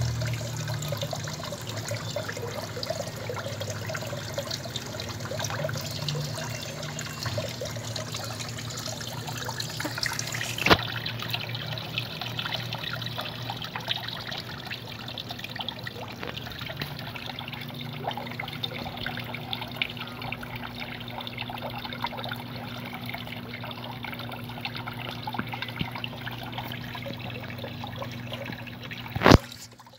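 Steady trickling water in a turtle tub over a low steady hum. A sharp click about ten seconds in and another near the end.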